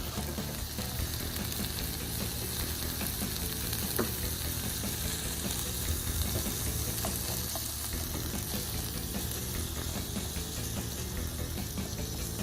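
Food sizzling in hot oil in an iron pan, a steady frying hiss with a few light clicks of a utensil stirring.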